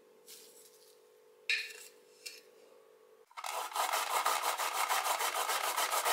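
A carrot being grated by hand, starting about three seconds in as quick, even rasping strokes, about five a second. Before that come a few soft scrapes and one sharp tap from a spoon scooping white granules.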